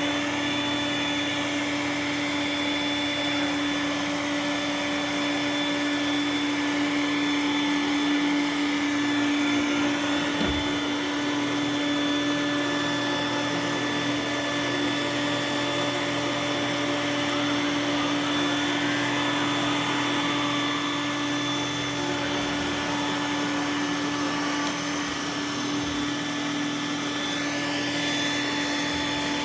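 iRobot Roomba s9 robot vacuum running steadily: a constant motor whine with a few steady tones over an even rushing noise, and a couple of faint low thumps.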